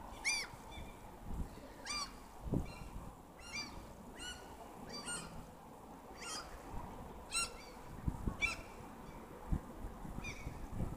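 Birds calling repeatedly outdoors, about a dozen short high-pitched calls roughly one a second, with a few low thumps.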